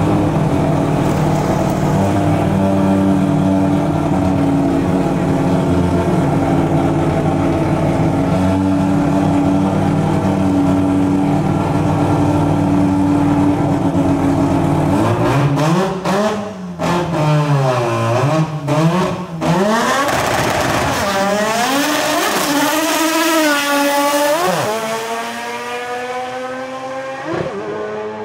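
FC Mazda RX-7 drag car's engine held at steady high revs on the start line, then revving up and down before launching. Its pitch rises in steps through the gear changes and fades as the car runs away down the strip.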